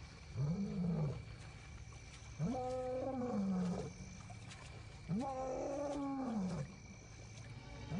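Lion roaring: three long, deep calls about a second and a half apart, each rising and then falling in pitch.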